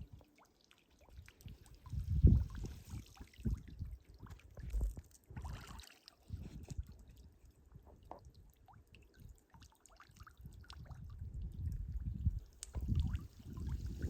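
Water splashing and trickling, with gusts of wind rumbling on the microphone.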